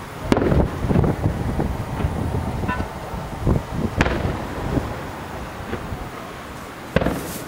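Aerial firework shells bursting at a distance: a string of booms and rumbles with sharp bangs, the sharpest about four seconds in and again near the end.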